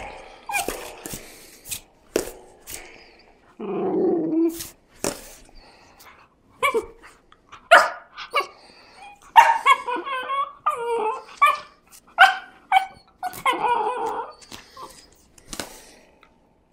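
A puppy's playful vocalising: many short yips and barks in quick bursts, with a longer low growl about four seconds in.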